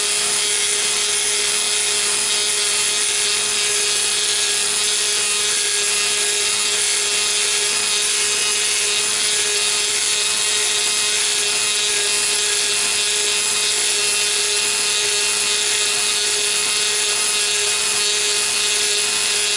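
Dremel flex-shaft tool-post grinder running steadily, its small stone grinding the inside bore of an ER32 collet chuck: a steady tone under a hissing grind. It is a light truing pass of about two ten-thousandths of an inch.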